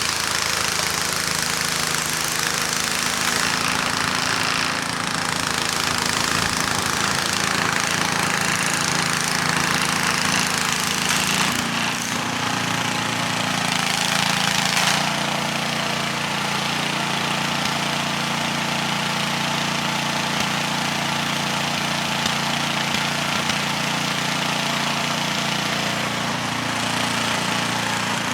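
Gas snowblower engine running steadily while clearing snow, under a constant rushing noise. Its note shifts a little about 12 and 15 seconds in.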